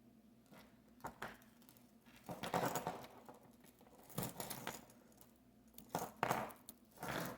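Costume jewelry being handled and sorted in a pile: several short bursts of small metal pieces clinking and jangling, with rustling.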